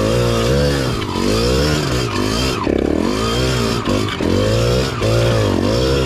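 Dirt bike engine revving in repeated surges as the throttle is opened and backed off, about once a second.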